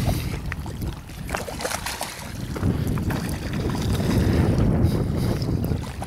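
Wind rumbling on the camera microphone, with water lapping and small splashes at the shoreline and scattered light clicks.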